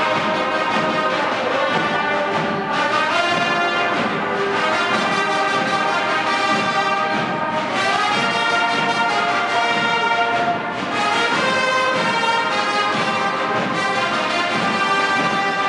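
Brass band playing a slow tune in long held chords.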